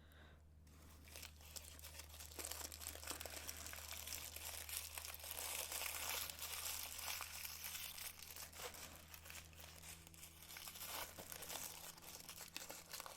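Packing material crinkling and rustling as it is handled, a dense run of small crackles that starts about a second in and grows loudest around the middle.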